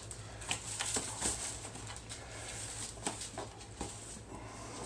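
Hands turning and patting pieces of turtle meat in flour in a plastic tub: soft rustling with a few scattered light taps, over a steady low hum.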